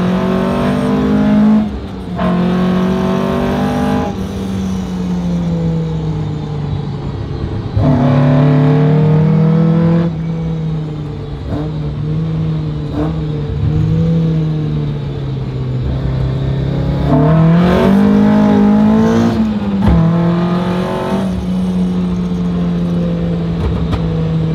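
Toyota AE86 Trueno's swapped-in 3S-GE BEAMS four-cylinder engine, heard from inside the cabin while driving. The engine note rises under acceleration and drops back at gear changes, with a couple of drops in the first few seconds, a steadier cruise through the middle, and a climb then a drop near the end.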